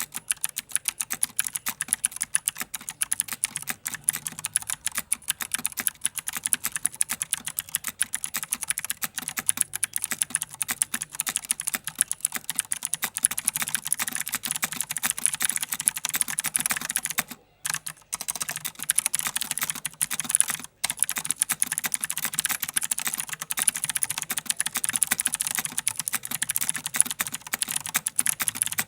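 Mechanical keyboard with clicky Cherry MX Blue switches being typed on: a dense, continuous run of sharp key clicks, broken by two brief pauses past the middle.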